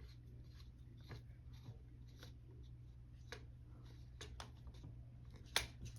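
Faint, scattered clicks and light taps of small metal gun parts and a hex key being handled while the safety's detent cap is tightened, with a sharper click near the end, over a low steady hum.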